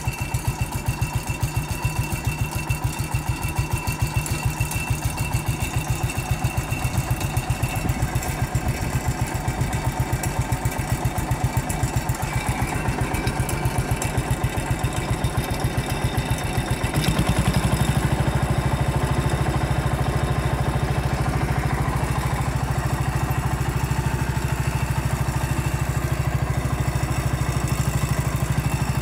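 Garden tractor engine running with a fast, even low pulse, then speeding up about 17 seconds in and running louder and steady from there.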